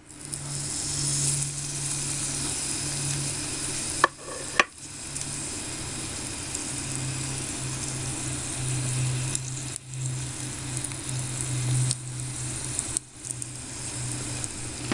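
Tiny breaded minced-meat cutlet (menchi katsu) deep-frying in a miniature pan of hot oil, sizzling steadily from the moment it goes into the oil. Two sharp clicks sound about four seconds in.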